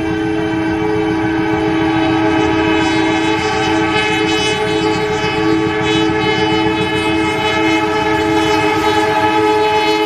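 A KAI diesel locomotive sounding one unbroken long blast on its horn, several notes at once, as the train approaches, over the rumble of the train on the track. This long blast is the Indonesian railway signal Semboyan 35.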